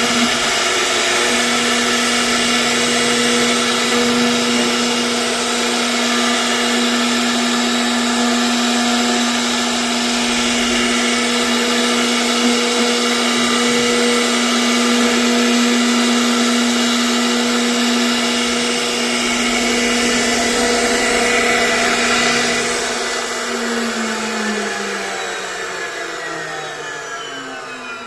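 CNC router spindle whining at a steady high speed while cutting, with cutting noise over the tone. About five seconds before the end the whine falls in pitch and fades as the spindle spins down.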